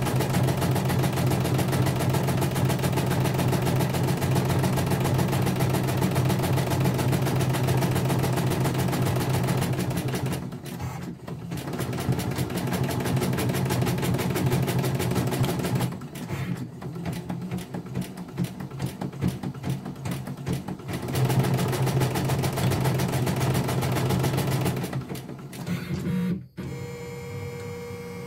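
CNY computerized embroidery machine stitching at a fast, even rate, its needle going up and down in a rapid steady rhythm. It turns quieter twice for a while, then stops near the end as the design finishes, leaving a low steady hum.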